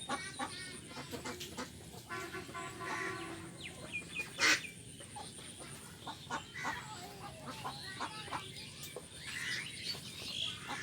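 Farmyard poultry calling in a run of short calls, with one longer harsh call about two seconds in and a sharp knock a little past the middle.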